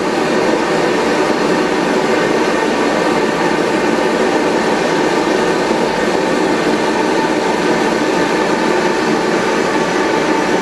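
Heat blower running steadily, an even rushing noise with a faint hum, preheating the hot bulb of a Tuxham two-stroke hot-bulb semi-diesel until it glows red, which must happen before the engine can be started.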